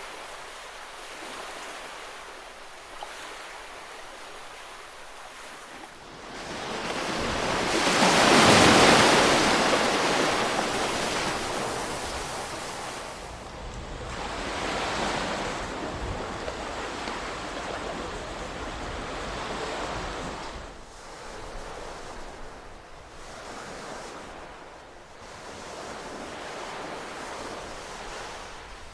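Ocean waves breaking and washing in, a steady surf that swells and fades. One large wave breaks about eight seconds in, followed by smaller swells.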